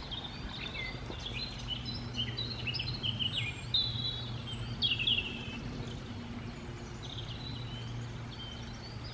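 Small birds chirping and twittering, several short calls and trills overlapping throughout, over a steady low hum.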